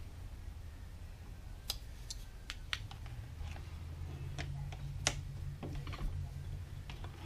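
Scattered sharp metallic clicks and clinks as a small rusty brushed DC motor is handled and large adjustable pliers close on the sprocket on its shaft, the loudest about five seconds in, over a steady low hum.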